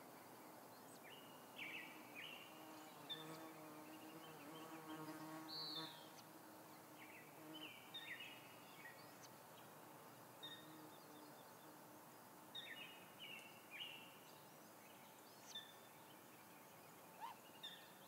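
Faint forest ambience with short chirps of small songbirds scattered throughout. A soft low hum runs for a few seconds about three seconds in.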